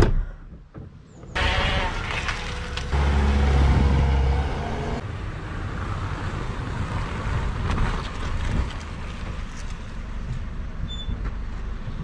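A car door thuds shut, then a Fiat Panda hatchback's engine starts about a second later and runs as the car drives off. Wind noise on the microphone runs under it.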